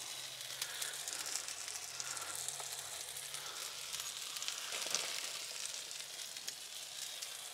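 Bacon, a beef burger patty and a hash brown sizzling on an electric hot plate: a steady fizz with many fine crackles.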